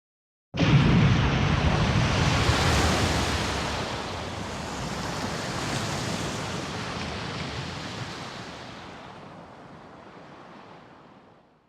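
A dramatic sound effect: a loud rushing noise with a deep rumble underneath. It starts suddenly about half a second in and fades away slowly over about ten seconds.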